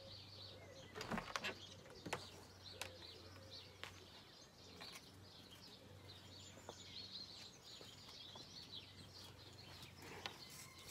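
Faint small birds chirping and singing throughout, with a few scattered soft clicks and knocks.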